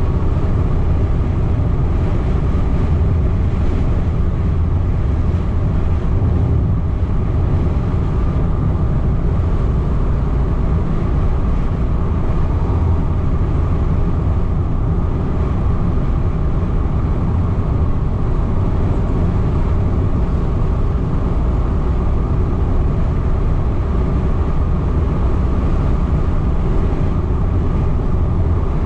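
Steady low rumble of a car driving along, heard from inside the cabin: tyre and road noise with the engine underneath, unbroken throughout.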